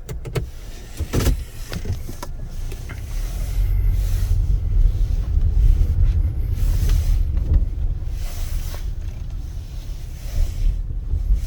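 Petrol car pulling forward slowly, heard from inside the cabin: a low engine and tyre rumble, with a few clicks and knocks in the first two seconds.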